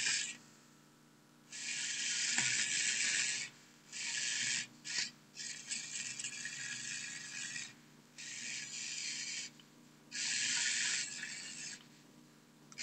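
Small toy robot's electric gear motor whirring in stop-start bursts of one to two seconds, about six times, as the robot drives and lurches.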